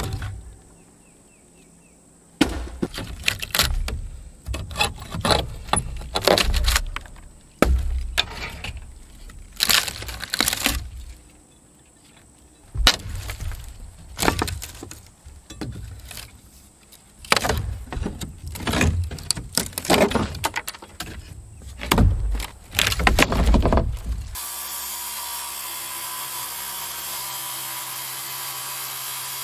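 Old wooden roof decking being pried up and broken out by hand: irregular knocks, cracks and splintering wood, with a couple of short lulls. About 24 seconds in, a cordless power tool starts and runs steadily, cutting into the decking boards.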